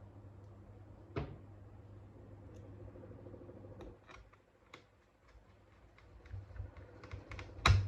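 Plastic clicks and knocks of a laptop's case being handled: a click about a second in, a few light ticks, then a cluster of clicks ending in a sharp knock near the end, over a low steady hum.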